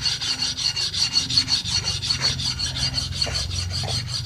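Hair-clipper blade being rubbed back and forth on an oiled steel plate coated with emery lapping compound, a gritty scraping in rapid, regular strokes. This is the lapping stage of sharpening, grinding the blade flat to remove sanding marks and restore its edge.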